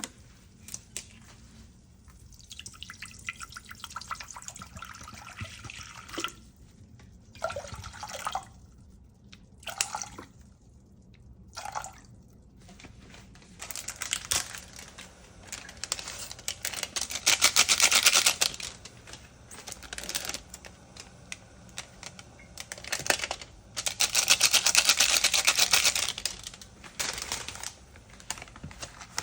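Water running and splashing in several bursts with short knocks between, the two loudest bursts in the second half, like a tap running into a sink.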